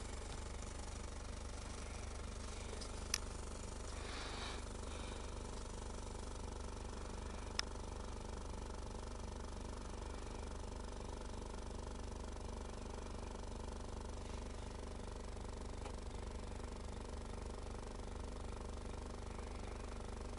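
Small electric vacuum pump motor humming steadily as it draws vacuum on a jar for impregnating wood, with two sharp clicks, about three and seven and a half seconds in.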